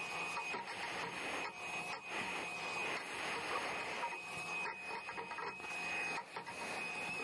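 Vacuum running with a steady high whine while its hose nozzle sucks up leaves and debris and scrapes and knocks around the compressor's base pan.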